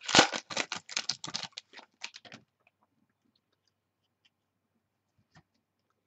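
Foil wrapper of a pack of football trading cards crinkling and crackling as it is torn open by hand, a quick run of rustles over about two seconds. One faint click follows near the end.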